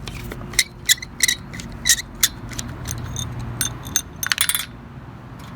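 Small metal parts and a hand tool clinking as the center screw and retaining plate of a mower's recoil starter are taken off: several separate sharp clicks, then a short rattle a little past four seconds in.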